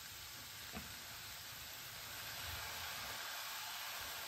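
Faint, steady sizzling from a hot pan of chickpeas and paneer, with one light click just under a second in.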